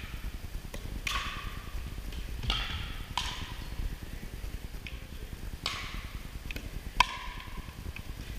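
Pickleball rally: paddles striking the hard plastic ball, five sharp hollow pocks at uneven intervals of about one to two seconds, each ringing briefly in a large gym.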